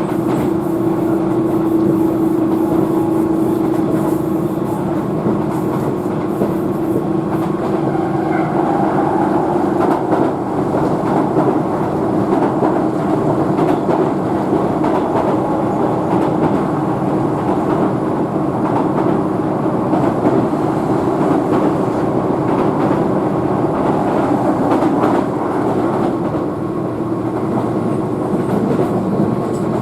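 Keihan Main Line electric train running at speed, heard from inside the passenger car: a steady rumble of wheels on rail with some clickety-clack. A steady motor hum fades out about a third of the way in.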